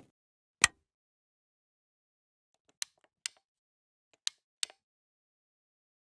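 Button toggle switch clicking: one sharp click about half a second in, then two pairs of fainter clicks, each a click followed by another about a third of a second later.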